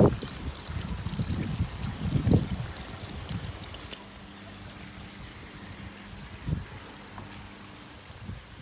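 Water trickling and splashing as it runs from a bakki shower's spray bar down through the filter media, with low rumbling bumps over the first few seconds. About four seconds in the splashing gets quieter and a faint steady hum is left under it.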